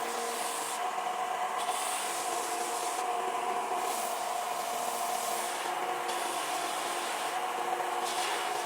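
Electric abrasive tool running steadily, its motor hum under a constant rubbing, grinding noise as the cast brass is shaped into a knife blade.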